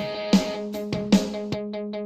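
Background music: a guitar-led track with a steady beat, with a run of quick, even plucked or ticking notes in the second half.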